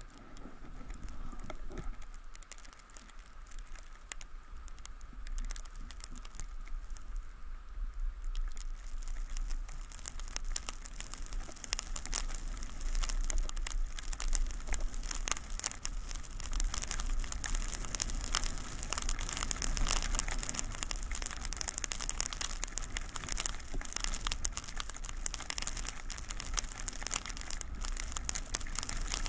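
Skis sliding and scraping over snow, a dense scratchy hiss that is faint at first and grows louder from about eight seconds in as the skier gathers speed. A low wind rumble on the camera's microphone runs underneath.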